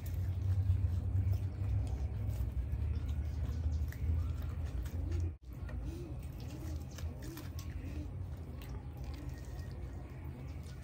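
Eating sounds of people eating chole bhature by hand: chewing and small smacking clicks over a steady low hum. The sound cuts out for an instant a little past halfway.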